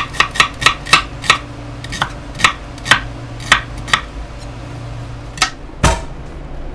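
Chef's knife slicing a red onion on a wooden cutting board: sharp knocks of the blade striking the board, a quick run of them at first, then slower, spaced cuts. Near the end there is one dull thud on the board.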